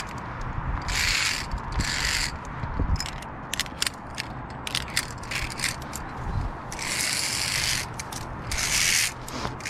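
Via ferrata gear on a steel safety cable: metal clicks and rattles of carabiners, with several rasping scrapes about half a second to a second long, and scuffing steps on rock.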